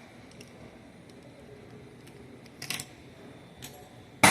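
A few small metal clicks from pliers and gearbox parts being handled, with a short cluster of clicks a little under three seconds in and a sharp clack right at the end.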